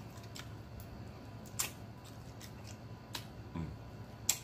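Close-up mouth sounds of a person eating chicken wings: scattered sharp lip smacks and wet clicks at irregular intervals, with a brief low murmur about three and a half seconds in.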